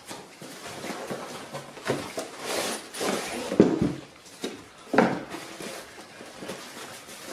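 Unboxing handling noise from a cardboard box and its packaging: rustling and a few sharp knocks, the loudest about three and a half and five seconds in.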